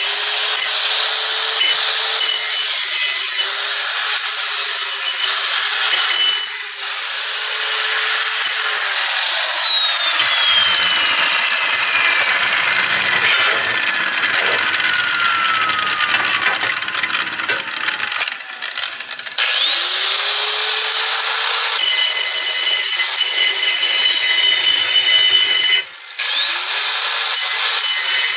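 Handheld electric angle grinder grinding the corners off a steel drawbar piece. About nine seconds in it is switched off and winds down, its whine falling slowly. It starts again with a rising whine a little after halfway, grinds, cuts out briefly near the end, then spins back up.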